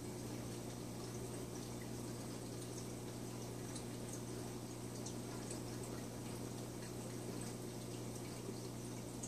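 Reef aquarium equipment running: a steady low pump hum under constantly trickling, bubbling water with faint little drips.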